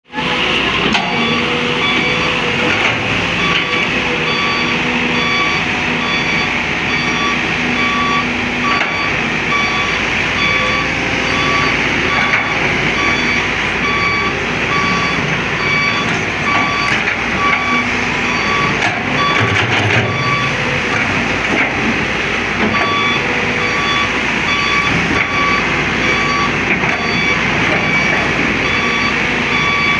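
Excavator's warning alarm beeping over and over at an even pace, over the steady running of its diesel engine.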